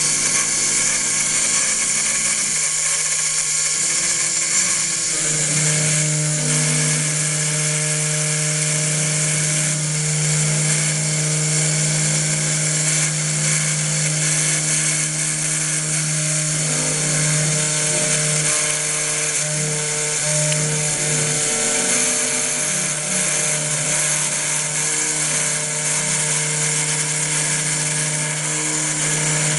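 Homemade CNC milling machine cutting: the spindle runs with a steady high whine while the stepper motors hum at tones that shift and change every few seconds as the axes move.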